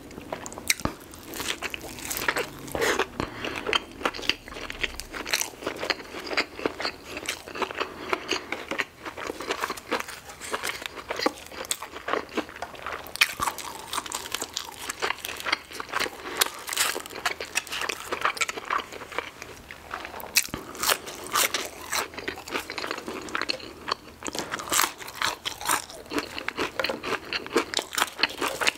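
Close-miked eating: biting into and chewing a crispy fried chicken sandwich, then waffle fries, with a steady run of short, irregular crunches.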